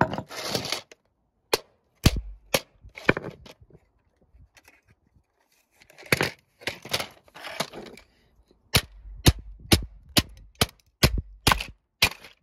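Sharp cracking blows on a plastic Peppa Pig toy telephone as it is being smashed. They come in two runs with a quiet pause of about two seconds between, the later blows about twice a second.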